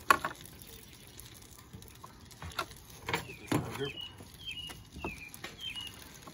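A sharp clink just at the start and a few soft knocks of things being handled. In the second half a small bird chirps a short, slightly falling high note over and over, about twice a second.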